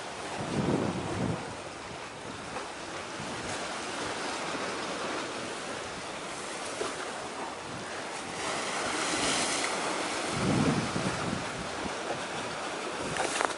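Wind buffeting the microphone over the steady wash of the sea, with gusts about a second in and again about ten and a half seconds in. A short sharp click comes near the end.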